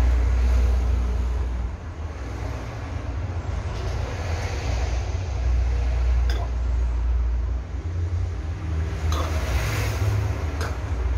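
Steady low rumble of vehicle noise, with a couple of light knocks and a brief hiss near the end.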